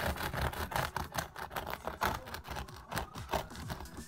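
A knife sawing through the crisp crust of a freshly baked loaf of homemade bread: a rapid, irregular run of crackling, scraping clicks.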